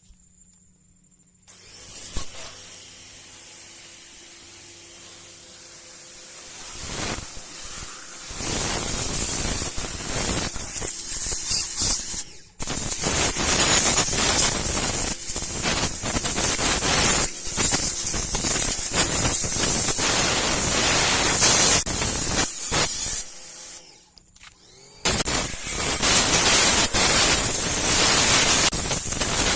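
A 3200 psi electric pressure washer spraying a jet of water onto car wheels: a steady loud hiss of spray that starts after a second and a half, grows much louder about seven seconds in, and cuts off twice briefly as the trigger is let go.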